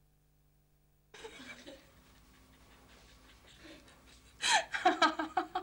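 A young woman laughing: a soft breathy laugh about a second in, then a run of quick, loud giggles near the end.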